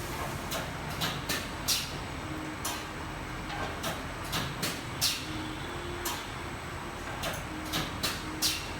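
Holztek automatic edge banding machine line with its feed and return conveyors running: a steady machine hum with frequent short, sharp hissing clicks coming irregularly, one or two a second.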